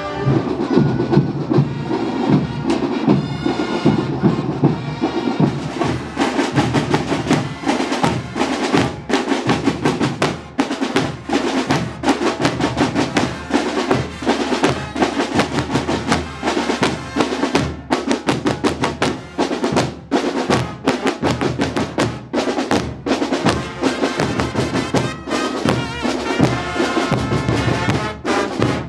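Fanfarria brass band playing with drums beating a steady, driving rhythm. The drumming turns brighter and fuller about six seconds in.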